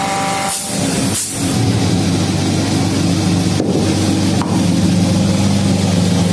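Automatic copy wood lathe running with a steady motor hum. About half a second and again about a second in, two short hisses of compressed air from its pneumatic cylinders, after which the running hum is louder.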